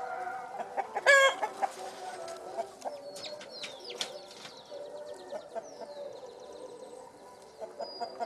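Chickens clucking, with one loud short squawk about a second in, while smaller birds chirp and whistle in the background.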